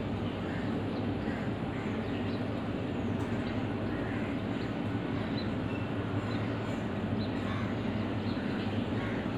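A steady low mechanical hum, like distant machinery or traffic, that holds even throughout, with a few faint short high chirps now and then.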